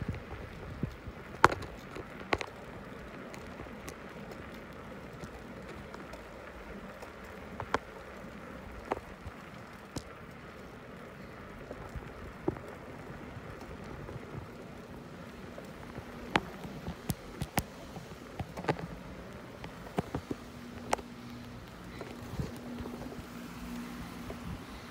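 Bicycle rolling along a concrete street: steady tyre and air noise with scattered sharp clicks and knocks at irregular moments, some in a quick cluster a little past the middle.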